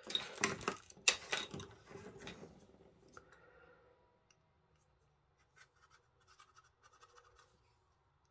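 Scratching and sharp clicks from handling a plastic squeeze bottle of craft glue, loudest for the first two seconds and then fading. Later come faint small clicks as a pin is worked into the bottle's nozzle to clear it, because the glue has stopped coming out.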